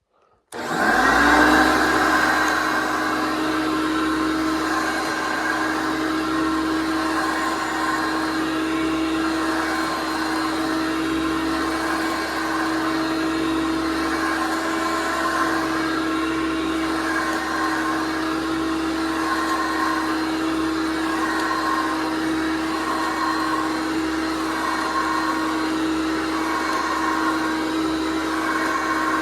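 1993 Hoover PowerMax Concept vacuum cleaner switched on about half a second in. Its motor spins up within a second and then runs steadily with an even hum and whir.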